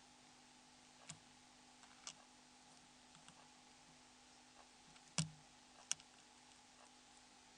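Near silence with a faint steady hum and a few short, sharp clicks: one about a second in, one about two seconds in, and two a little past five and six seconds in, the one just past five the loudest.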